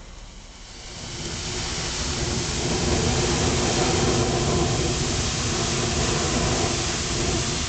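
Homemade fountain firework made from 110 sparklers packed into a metal tube, spraying sparks with a loud steady hiss. The hiss builds up over the first couple of seconds and starts to fade near the end.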